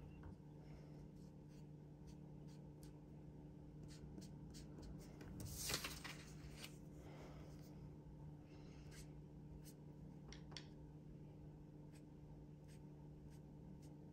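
Faint, irregular taps and rubs of a sponge ink dabber on planner paper, with one louder rustle about halfway through, over a low steady hum.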